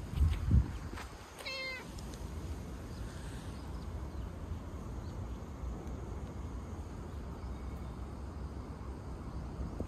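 A cat gives one short meow about a second and a half in. Just before it comes a loud low thump, and a steady low rumble runs underneath.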